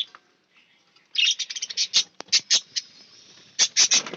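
Small cage birds chirping in quick runs of short, high calls, starting about a second in and again near the end.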